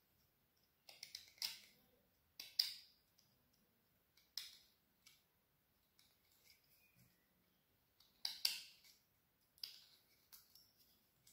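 A carving knife slicing short cuts into a green branch's wood, a series of quiet, crisp scraping strokes every second or so, some in quick pairs.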